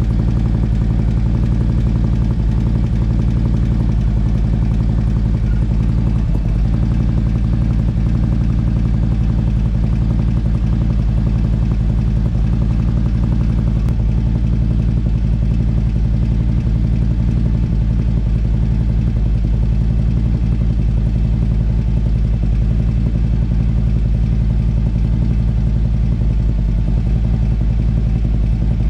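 Harley-Davidson V-twin engine idling steadily. The bike has a noise that the owner is hunting down and first suspects is an exhaust leak.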